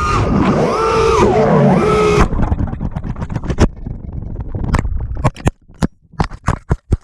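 FPV quadcopter's brushless motors whining loudly, their pitch rising and falling with the throttle for about two seconds before dropping away. Then a rush of air with a string of sharp crackles and pops.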